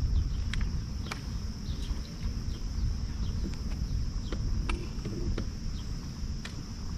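A steady, high-pitched drone of insects, crickets or similar, from the wooded shore, over a low rumble of wind on the microphone. Scattered light clicks and faint short chirps are heard throughout.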